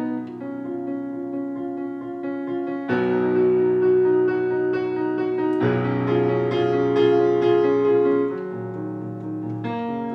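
Instrumental music: piano playing evenly repeated notes over held chords that change every few seconds, swelling louder about three seconds in and easing back near the end.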